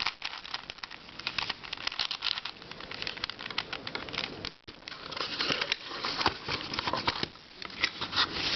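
Boxed puzzles and their plastic packaging being handled: dense, irregular crinkling and clicking, with a brief lull a little past the middle.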